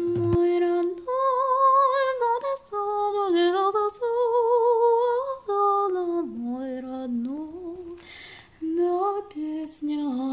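A woman's voice singing a slow melody with strong vibrato, notes held and gliding from one to the next, most likely a song laid over the video as background music.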